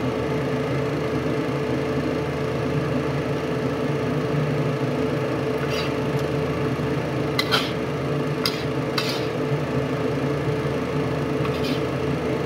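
Metal spatula scraping and knocking against a wok while shredded chicken is stir-fried, with a few sharp scrapes in the second half, over a steady mechanical hum with a constant tone.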